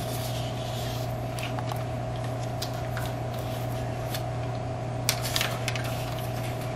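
Paper backing crinkling and rustling as vinyl-backed butyl mastic tape is pulled off its roll and wrapped around a coax connector: scattered light crackles, with a small cluster about five seconds in. A steady low hum runs underneath.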